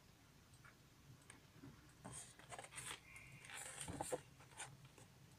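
Faint rustles and light clicks of a cardboard box being handled and turned over, mostly between about two and four seconds in; otherwise near silence.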